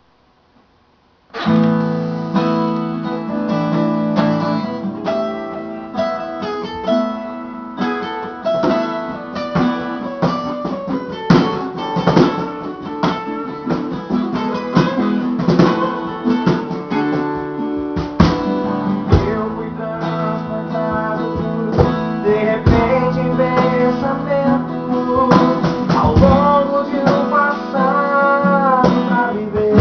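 Music of a gospel hymn, led by strummed acoustic guitar, starting about a second in.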